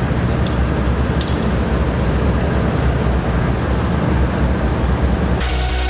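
Oxy-fuel cutting torch running steadily with the cutting oxygen on, blowing through a steel forklift lift chain to cut off its head; a couple of faint clicks come in the first second and a half. Electronic music cuts in near the end.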